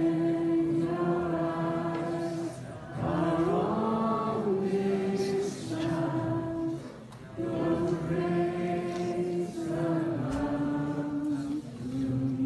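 Worship song sung by several voices together in slow phrases of long held notes, each a couple of seconds long, with short breaks between them.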